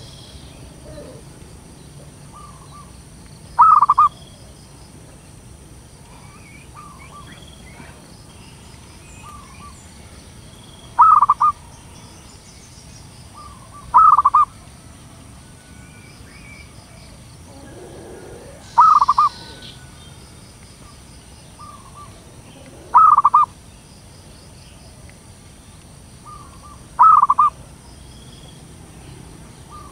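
Zebra dove (perkutut) cooing: six loud, short calls, each about half a second, spaced a few seconds apart, with fainter short notes in between. It is a female's call of the kind used as a lure for other zebra doves.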